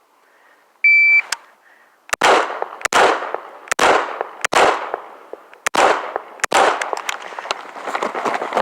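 An electronic shot timer gives one steady high start beep about a second in, then gunshots follow: six sharp cracks about 0.8 s apart, each ringing out, then quicker, denser cracks near the end.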